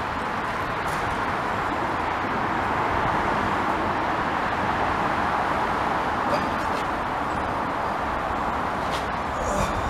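Steady road traffic noise from the bridge overhead: a dense rushing hiss of passing vehicles that swells a little in the middle and eases again.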